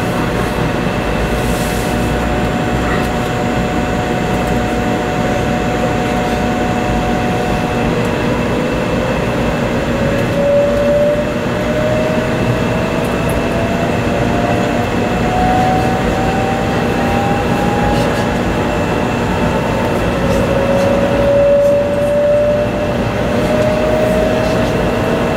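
Running noise heard inside a passenger car of a 500 series Shinkansen: a steady rumble with a whine from the traction motors that rises in pitch twice as the train picks up speed.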